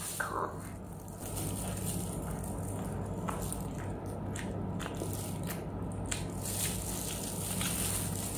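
Mouth chewing a bitten ice cream sandwich of soft wafer biscuits, with scattered small crunching clicks over a steady low hum.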